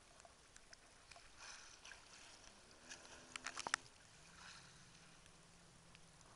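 Faint water lapping and splashing against a camera at the sea surface, with a quick cluster of sharp splashes a little past halfway. From about four seconds in, the faint steady drone of a distant jet ski engine.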